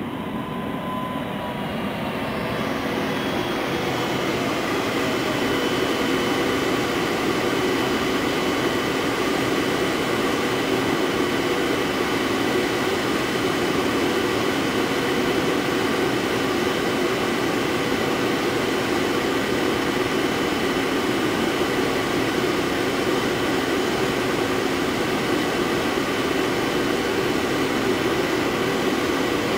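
Electric multiple unit standing at the platform, its on-board equipment giving a steady hum and whine: several held tones over a hiss that swells over the first few seconds, while a fainter whine falls away.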